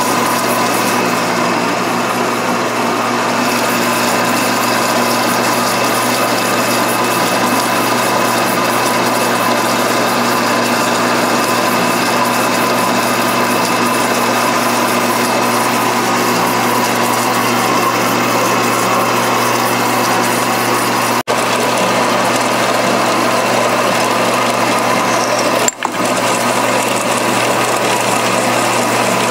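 Horizontal metal-cutting bandsaw running steadily, its blade sawing through a quarter-inch 6061 aluminum plate bolted to an aluminum cylinder head. The sound breaks off twice for a moment near the end.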